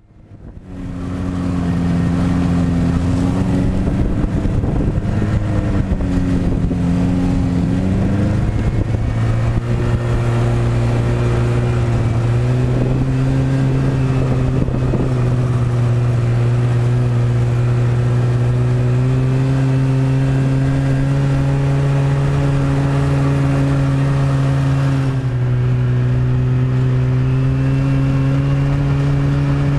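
Snowmobile engine running under way, heard from on board. Its note wavers for the first several seconds, then picks up slightly and holds steady, with a brief dip near the end.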